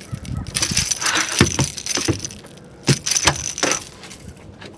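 Clatter and sharp knocks with a stretch of hissing noise, as a small hybrid bass is landed and handled in a small fishing boat along with its lure and tackle.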